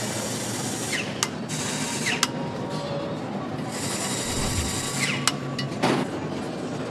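Handheld power tools running in three short bursts while bolts are driven into an aluminium engine crankcase, with sharp metallic clicks between them, over a steady machine hum.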